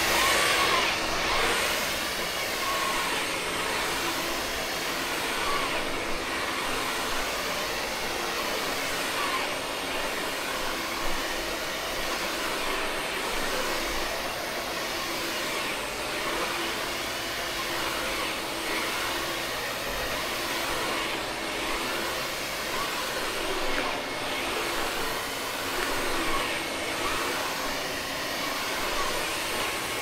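Roborock Flexi Pro cordless wet-and-dry vacuum running steadily while its cleaning head is pushed across a woven rug: an even rushing noise over a steady motor hum.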